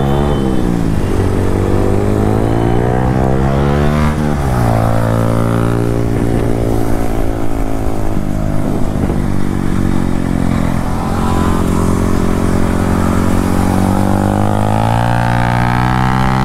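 KTM Duke 390 engine and exhaust pulling under way. The revs climb for about four seconds, drop at a gear change, hold steady while cruising, then climb again near the end as the bike speeds up.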